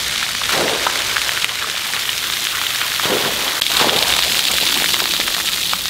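Splash pad ground jets spraying water that splashes down onto the pad, a steady rain-like hiss.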